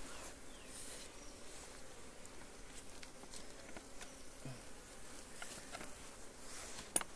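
Honeybees buzzing steadily and faintly around an open hive, with a few light knocks and one sharp click near the end as honeycomb frames are pushed together in the honey super.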